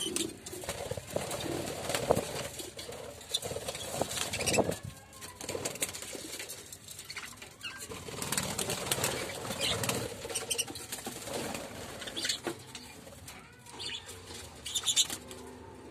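Budgerigars fluttering their wings and giving short chirps, with rustling and knocks close to the microphone.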